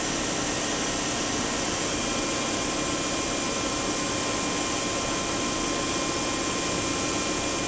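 Main spindle of a 1999 Daewoo Puma 200LMSA CNC turning/milling center running steadily at 2,000 RPM with no part in the collet chuck: an even whine of a few steady tones over a hiss.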